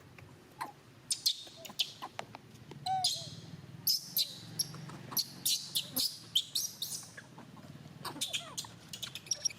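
Many short, high-pitched animal chirps and squeaks in quick runs, over a low steady hum.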